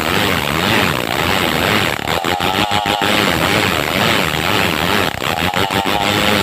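Two-stroke chainsaw running at high revs as it rips along a log of madang wood, its engine note wavering under load. The sound briefly breaks about two seconds in and again near five seconds.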